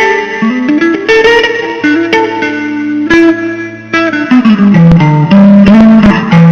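Blues guitar playing an instrumental lead phrase of held notes over a bass line, stepping down in pitch about four and a half seconds in.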